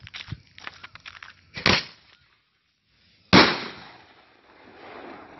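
Sound-report firework cake firing: a short pop about a second and a half in, then a much louder sharp bang just over three seconds in that trails off in a long echo.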